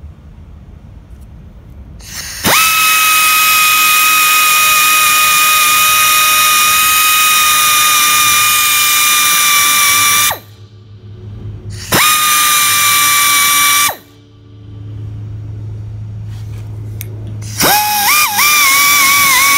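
Hand-held rotary tool whining at high speed as its bit cuts slits into a broken metal pipe fitting seized in a threaded bung. It spins up with a quick rising whine and runs steadily for about eight seconds, stops, then runs again for about two seconds. It starts a third time near the end, the pitch wavering as the bit bites and loads in the cut. A low hum fills the pauses between runs.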